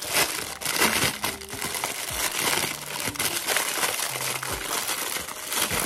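Thin clear plastic packaging crinkling and crackling as it is pulled open and unwrapped by hand to free a silicone scalp massager brush.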